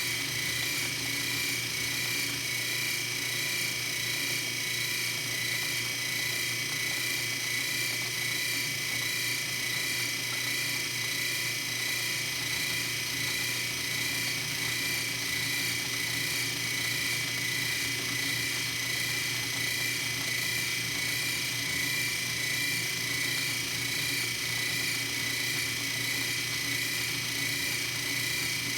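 Metal lathe running steadily with a constant whine and hum, turning the new pulley nut as it is bored and threaded.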